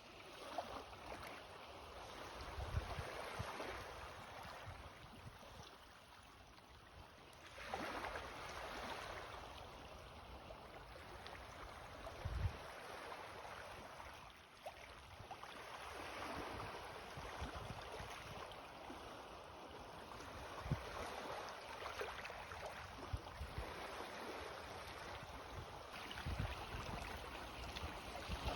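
Small sea waves lapping and washing at the shore in slow swells every few seconds as the tide comes in, with low thumps from the water beneath.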